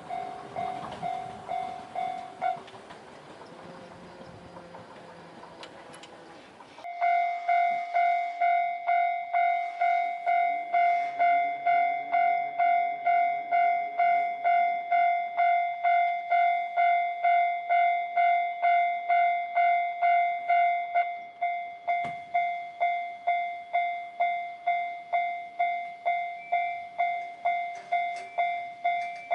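Japanese railway level-crossing warning bell ringing its repeated "kan-kan" strokes, about two a second. The bell dies away a couple of seconds in while a train rumbles past. It then starts again loud and steady about seven seconds in and keeps ringing.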